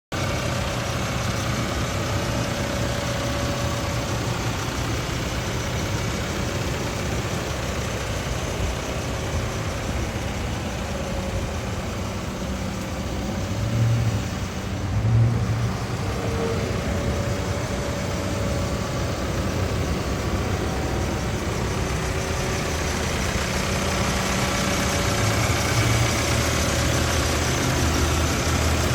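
Case 580N loader backhoe's diesel engine idling steadily, with a brief rise in level about halfway through.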